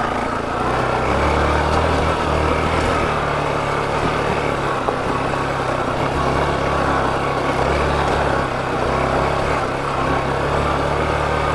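Yamaha FZ motorcycle engine running steadily at an even pitch while being ridden on a dirt off-road track.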